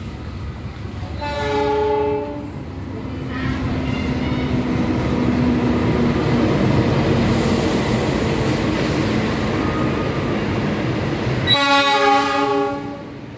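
A KAI diesel locomotive sounds its horn as it hauls the Lodaya passenger train in past the platform. There are two horn blasts, one about a second in and one near the end, and between them the locomotive's engine and the wheels of the coaches rumble steadily.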